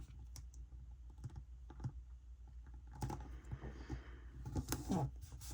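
Faint, scattered light clicks and taps of stickers and paper being handled and pressed onto a planner page, a little louder about three seconds in and near the end.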